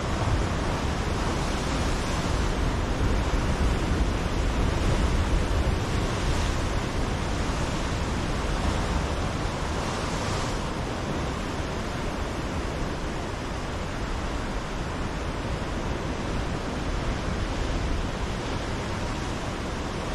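Ocean surf washing steadily against a rocky shore, with a low rumble underneath and a few swells as waves break, about two, six and ten seconds in.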